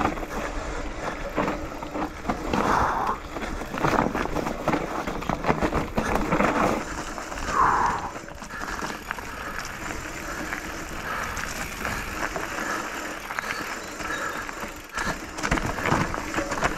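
Mountain bike riding down a rocky dirt trail: tyres rolling over stones, roots and leaves, with irregular rattles and knocks from the bike as it jolts over the bumps.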